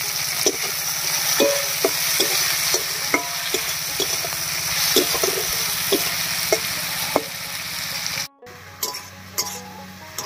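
Chopped tomatoes and onion sizzling in hot oil in a kadai, with a flat metal spatula scraping and tapping against the pan about twice a second as they are stirred. Just after eight seconds the sound cuts out abruptly, then returns quieter with a few more taps.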